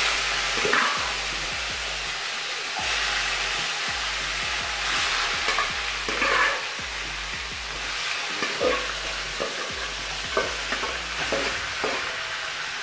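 Marinated chicken pieces sizzling in hot oil in an aluminium kadai, a steady frying hiss that swells a few times as more pieces are ladled in. A metal ladle knocks and scrapes against the pots now and then.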